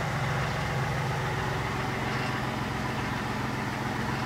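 1997 Chevrolet Malibu's 3.1-litre V6 idling steadily with its coolant cap off, warming up so that trapped air can burp out of the cooling system.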